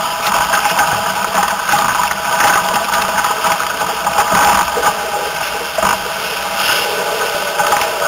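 Steady rush of wind and water as an F16 racing catamaran sails at speed, with spray and wind on the deck and hulls.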